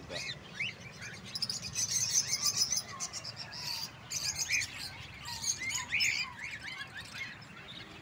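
Many small caged birds, lovebirds and finches among them, chirping and twittering at once in short, high, overlapping calls.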